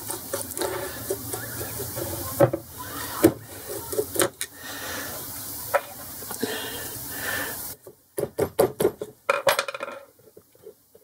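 Metal clinks and knocks of hand tools working on a 4-jaw lathe chuck as a screw in its back is undone. A quick run of clicks comes near the end.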